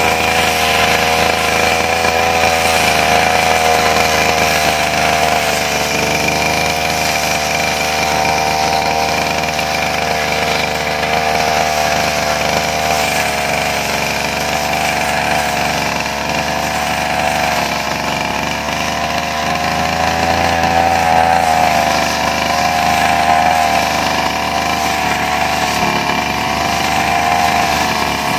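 Brush cutter (motorised grass cutter) engine running steadily at high speed, its pitch wavering slightly up and down while clearing grass.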